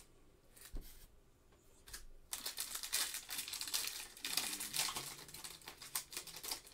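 Foil trading-card pack wrapper being torn open and crinkled by hand, a dense crackling that starts about two seconds in.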